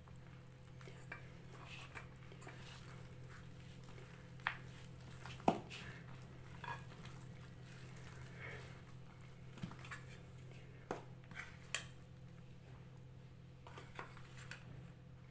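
Scattered light clinks and knocks of kitchen utensils against a mixing bowl as flour is added and worked into a soft dough, over a low steady hum.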